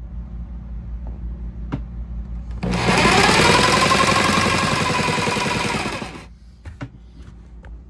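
A Black+Decker jigsaw starts about two and a half seconds in, cutting through a wooden cabinet panel with a loud rapid rattle, and stops about six seconds in. A low hum runs beneath it before it starts, and a few sharp clicks follow.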